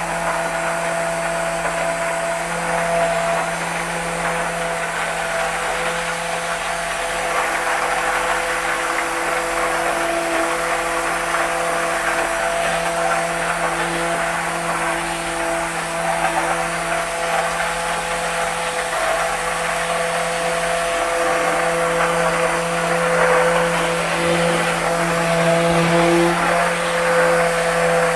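Hand-held immersion blender running steadily in a tub of chilled ice-cream base, re-blending the cold mix so it is smooth and even. It is a steady motor hum and whine.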